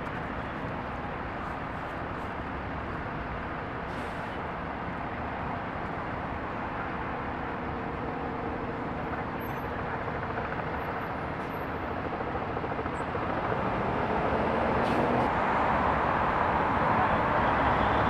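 Road traffic: a steady hum of vehicle engines and tyres, with a vehicle getting louder over the last several seconds as it comes closer.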